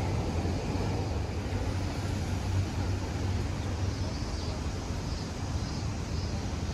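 City street ambience: a steady low rumble of road traffic, with faint high chirps in the second half.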